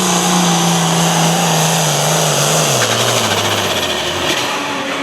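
Hot farm pulling tractor's engine running hard at high, steady revs, then its pitch drops in steps from about two and a half seconds in until it dies away a little after four seconds, as the revs come down.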